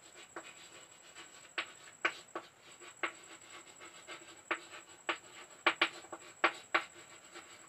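Irregular light clicks and taps of a pen on a writing surface, about fifteen spread unevenly, while a word is written out.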